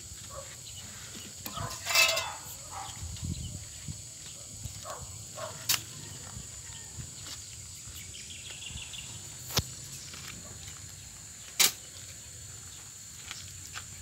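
Sand-sifting work with a shovel and screen: a few scattered sharp knocks, the loudest late on, and a short harsh scraping sound about two seconds in, over a steady high hiss.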